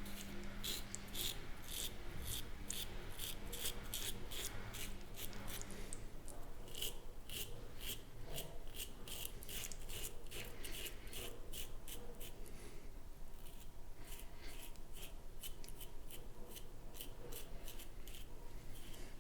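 Razor scraping across a stubbled face in short, rasping strokes, about two to three a second, with a brief lull of fainter strokes past the middle.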